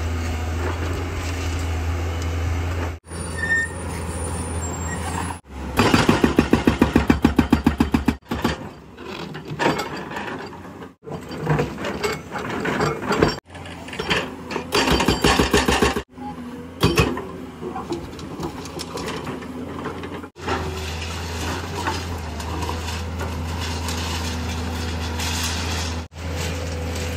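JCB JS215 tracked excavator's diesel engine running steadily. It is broken by stretches of a hydraulic breaker hammering on reinforced concrete, rapid blows at about ten a second, the longest lasting a little over two seconds.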